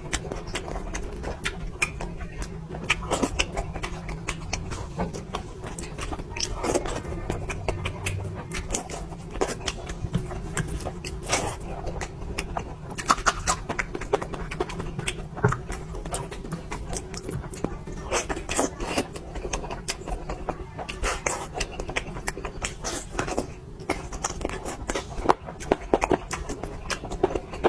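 Close-miked eating sounds: irregular wet clicks and smacks of a mouth chewing food, over a steady low hum.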